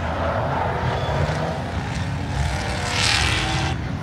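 A drift car's engine running hard on track, a steady drone, with a short noisy burst about three seconds in.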